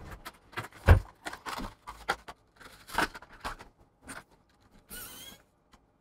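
Bench handling noises: a scatter of small clicks, taps and light knocks, with a dull thump about a second in and a short rustle near five seconds in.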